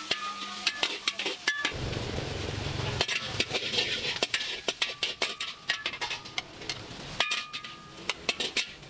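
Metal spatula repeatedly clanking and scraping against an iron wok as flat rice noodles (char koay teow) are stir-fried over a charcoal fire, with sizzling that swells in the middle.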